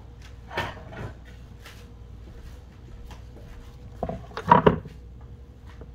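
Kitchen handling noise: a light knock, then a louder cluster of knocks and clinks about four seconds in as cookware is set down on a wooden cutting board, over a faint steady hum.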